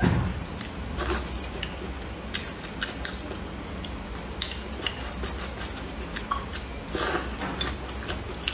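Close-miked chewing and mouth sounds of a person eating, a run of small irregular wet clicks, with a louder burst about a second in and again near the end.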